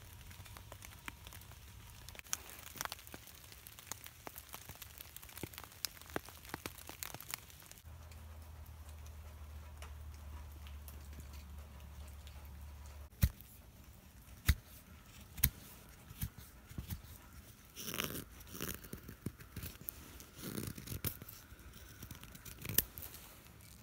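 A carving knife paring shavings from a green sugar maple spoon blank: short slicing and scraping strokes with faint ticks, a few sharp clicks around the middle, and denser clusters of cuts in the last few seconds.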